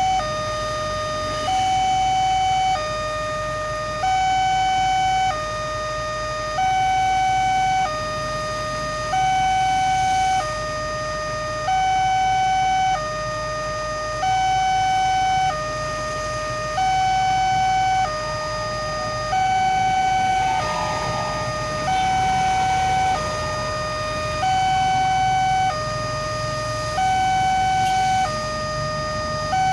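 Railway level-crossing warning alarm sounding its electronic two-tone hi-lo, switching between a higher and a lower tone about every 1.3 seconds without a break, the signal that a train is approaching with the barrier down.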